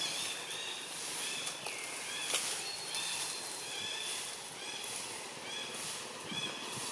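Repeated short, high-pitched animal calls, about two a second, some falling in pitch, over a steady high hiss, with one sharp click a little over two seconds in.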